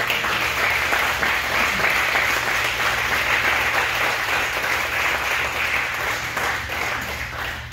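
A small group of people applauding with steady clapping that tails off near the end.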